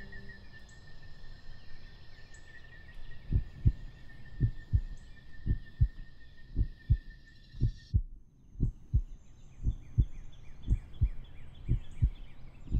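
A slow heartbeat, low paired thumps about once a second, starting about three seconds in. Beneath it runs a high chirring of night insects that cuts off about eight seconds in, giving way to faster, pulsed chirps.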